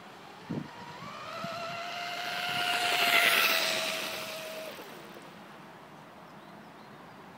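Electric RC racing catamaran with an LMT 1535/8 brushless motor spinning a 34 mm brass propeller at about 44,000 rpm under load, passing at speed. A high-pitched motor whine with spray hiss swells, peaks about three seconds in, then fades as it dips slightly in pitch. There is a brief knock about half a second in.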